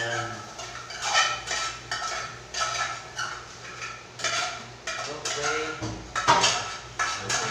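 A metal utensil scraping and knocking against a frying pan while food is scraped out of it into a bowl: a series of uneven scrapes and clanks, about one every second.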